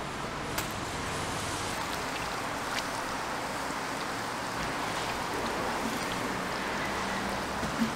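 Deep-fryer oil sizzling, a steady rain-like hiss, with a few faint clicks, the loudest near the end.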